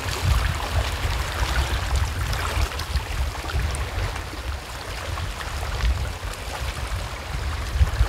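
Seawater lapping and trickling among shoreline rocks, with a low, gusting wind rumble on the microphone.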